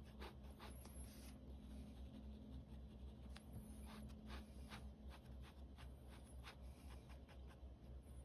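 Ballpoint pen hatching on sketchbook paper: faint, irregular short scratching strokes over a low steady hum.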